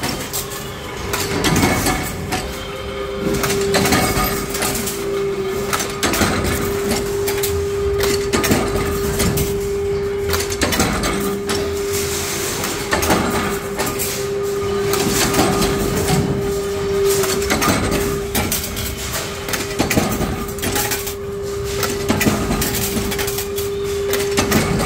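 Automatic power press with a servo strip feeder running continuously, blanking small triangular parts from metal strip. It makes a repeated rhythm of stamping knocks over a steady motor hum.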